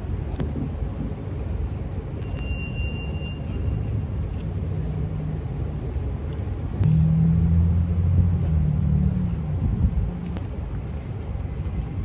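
Low rumble of street traffic, with a vehicle engine running louder for about two seconds past the middle.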